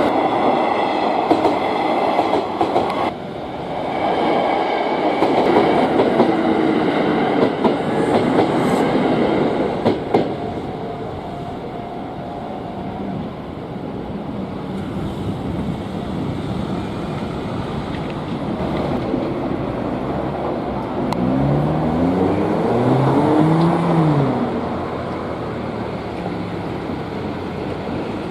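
An electric commuter train runs over the level crossing with a loud rumble and wheel clatter that fades after about ten seconds. Later comes the motor whine of an electric train, stepping up and down in pitch for a few seconds, as it pulls away from or draws into the station beside the crossing.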